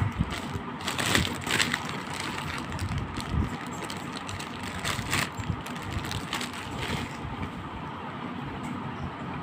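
Thin clear plastic bag crinkling and rustling as it is handled, in irregular bursts over the first seven seconds or so, over a steady background noise.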